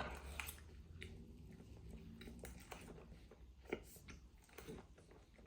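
Faint chewing of a mouthful of instant noodles, with a few scattered soft clicks.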